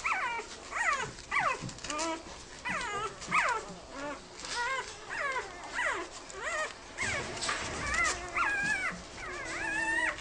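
Goldendoodle puppies whimpering and yelping: a quick string of short, high cries that fall in pitch, about two a second, turning into longer, overlapping whines near the end.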